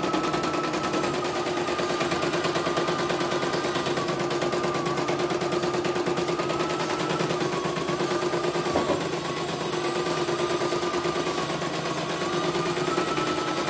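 CNY E900 portable embroidery machine stitching a design at a reduced speed setting: a rapid, even clatter of needle strokes over a steady whine that wavers slightly in pitch.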